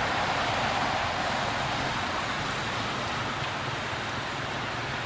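Steady outdoor background hiss, even and unbroken, with no distinct calls or knocks.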